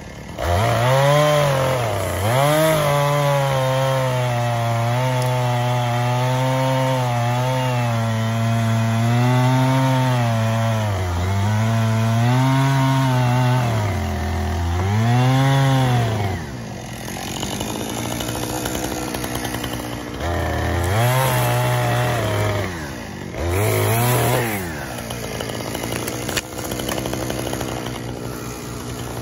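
Gas chainsaw cutting through a felled log at full throttle, its engine pitch sagging and recovering again and again as the chain bites into the wood. About two-thirds of the way through it drops back to idle, revs up twice briefly, then idles.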